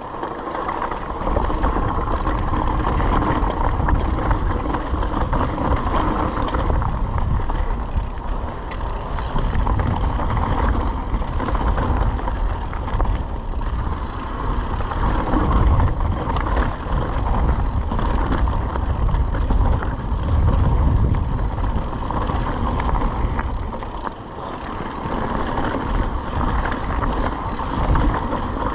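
Mountain bike rolling fast down a dry, rocky dirt trail: tyres running over loose stones and gravel, with wind rumbling on the camera microphone.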